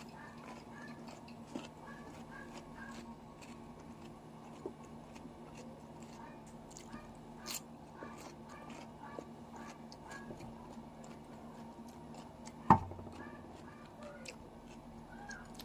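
Mouth sounds of someone chewing raw cucumber: scattered crisp crunches and wet clicks over a steady low hum, with one loud knock about two-thirds of the way through.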